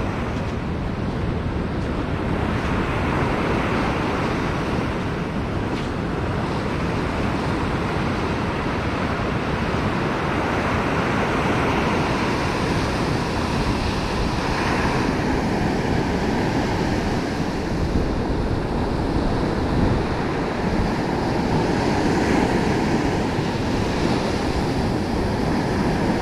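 Rough surf breaking and washing up a sandy beach in a steady roar of water, with wind rumbling on the microphone.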